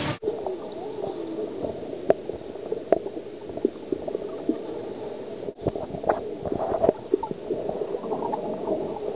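Muffled underwater gurgling and bubbling, with scattered sharp clicks, as heard by a camera submerged in the lagoon.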